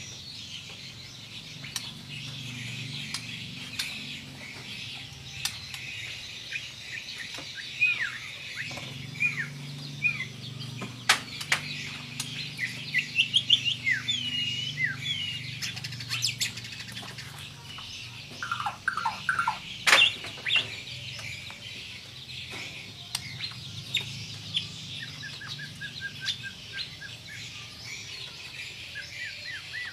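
White-rumped shama (murai batu) singing in bursts of varied whistled and chirping phrases, with a few sharp loud notes. A fast run of rapidly repeated notes comes near the end.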